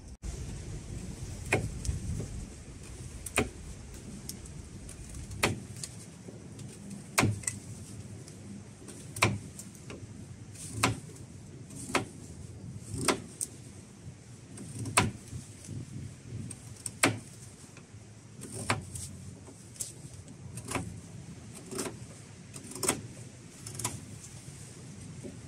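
Morakniv knife carving a flat notch into a wooden pole, each stroke of the blade biting into the wood as a sharp click, roughly one every one to two seconds.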